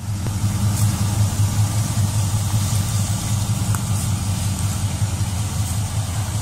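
A classic Pontiac sedan's engine idling steadily, a low and slightly uneven sound.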